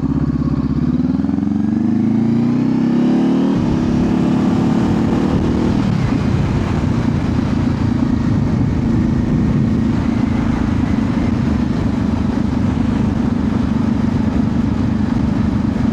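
Honda CBR500R's parallel-twin engine accelerating through the gears. The revs climb, drop at an upshift about three and a half seconds in, climb again, shift once more around six seconds in, then hold steady at a cruise.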